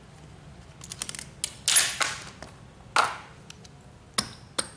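Metal fittings and hand tools being handled on a workbench: a few light ticks, then two louder clanks about a second apart, each with a short ring, then scattered light clicks.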